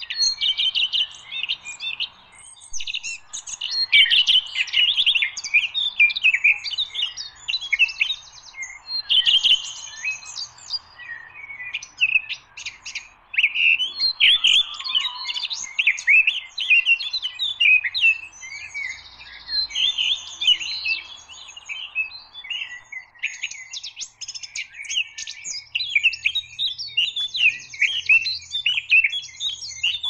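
Recorded songbird song played as a hunting lure: a dense, unbroken stream of quick high chirps and warbling phrases, with short buzzy trills here and there.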